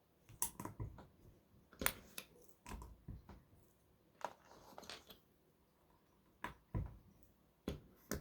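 Plastic LEGO bricks clicking and rattling as they are handled and pressed together, in a dozen or so scattered sharp clicks with short pauses between them.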